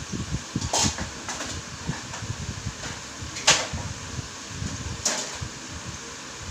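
Candy packaging being handled: low handling bumps with a few short crinkles, the loudest about three and a half seconds in.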